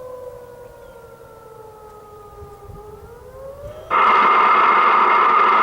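Federal Signal Modulator tsunami warning siren sounding. A faint wailing tone falls slowly in pitch, then starts to rise, and about four seconds in a much louder, steady siren tone cuts in suddenly.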